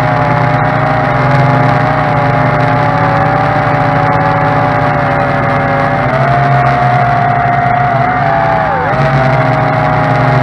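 JJRC H16 (Tarantula X6) quadcopter's motors and propellers buzzing loudly, recorded by a camera mounted on the drone itself. The whine's pitch wavers with the throttle and dips briefly near the end.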